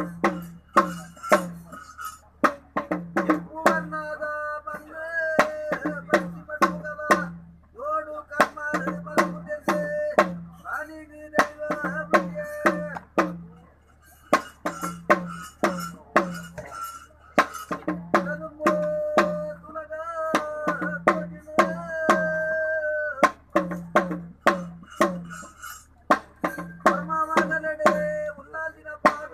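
A hand drum beaten in quick, sharp strokes with a man's voice chanting in long level-pitched phrases over it, the ritual drumming and chant of a Bhuta Kola.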